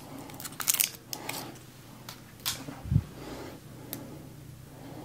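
Small handling noises in a small room: a few short crinkly clicks and one dull thump about three seconds in, over a faint steady low hum.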